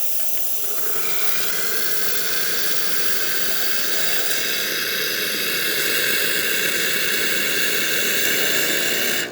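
Pasquini Livia 90 espresso machine's hot water spout dispensing boiler water with a steady loud hiss that cuts off suddenly at the end when the tap is closed, the hot water function working correctly after a tune-up.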